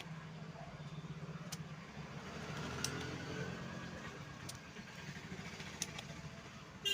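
A motor vehicle engine running steadily, with a few sharp clicks over it.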